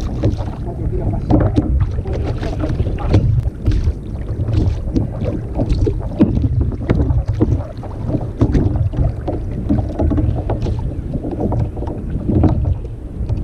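Wind buffeting the camera microphone, with irregular knocks and water splashes as a large corvina is lifted out of the water and handled against a plastic sit-on-top kayak.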